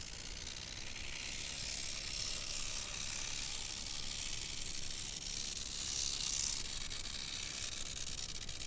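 T-gauge (3 mm) model Garratt locomotive running along its track: a thin, high, hissing whir from the miniature motor and wheels on the rails, growing louder about six seconds in.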